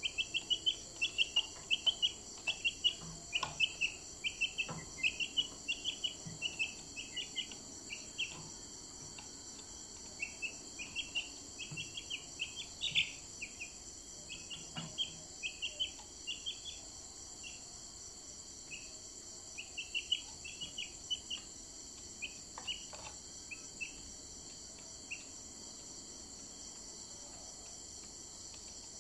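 Steady high drone of crickets, with runs of short, high bird chirps over it, many in quick succession during the first half and only scattered ones later.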